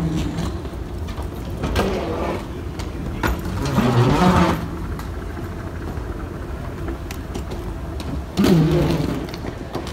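Steady low vehicle rumble, with indistinct voices breaking in briefly a few times; the voices are loudest about four seconds in and again near the end.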